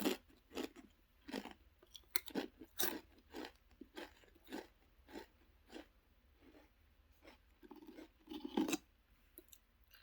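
A person chewing Lay's Stax Xtra Flamin' Hot potato crisps with the mouth close to the microphone: short, sharp crunches, about two a second at first, then more spread out.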